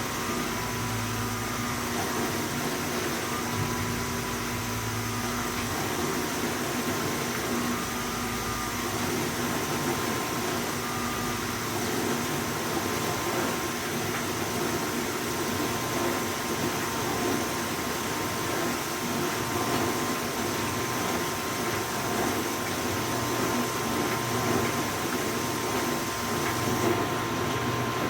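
1986 GE convertible dishwasher running at the start of its rinse cycle: a steady whir with a low hum and a thin steady tone.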